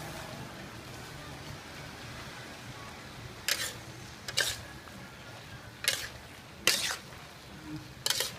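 A metal spatula stirring and scraping cow offal and vegetables around a steel wok over steady frying. The spatula scrapes against the wok about five times in the second half, at uneven intervals.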